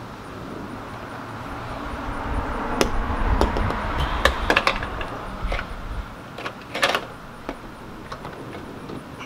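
Hard plastic clicks and knocks as a double-arm side mirror assembly is manoeuvred against the van's door, several in quick succession in the middle. A rushing noise with a low rumble swells behind them and dies away about two-thirds of the way through.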